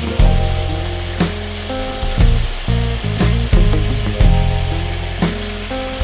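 Meat and vegetable skewers sizzling on an electric grill pan as they are basted with sauce, over background music with a slow, steady beat.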